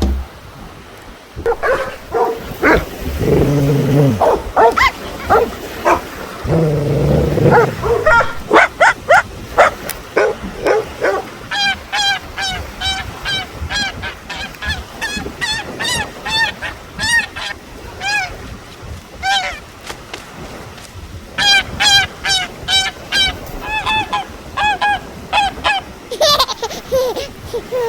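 Geese honking. Scattered calls in the first few seconds become a fast run of repeated honks from about eight seconds in, with a brief lull near the middle.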